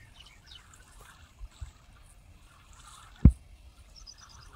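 Faint outdoor ambience of birds chirping, with soft water sounds from wading in a flooded paddy nursery. One sudden low thump comes about three seconds in and is the loudest sound.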